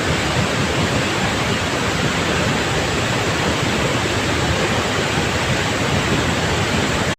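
Loud, steady rush of a large waterfall, Athirapally Falls, in heavy flow.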